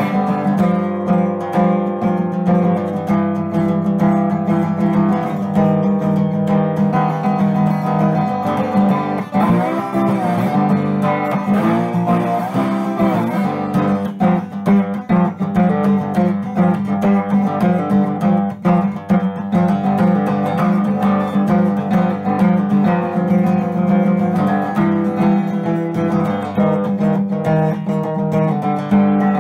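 Resonator guitar played bottleneck-style with a metal slide, fingerpicked blues with a steady low bass and notes that glide up and down in pitch under the slide.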